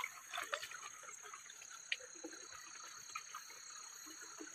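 Riverside evening ambience: crickets chirring steadily on one high note, with faint scattered ticks and small water splashes.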